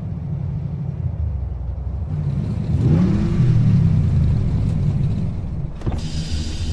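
A car engine revving: a low engine note rises in pitch about two and a half seconds in, then falls back.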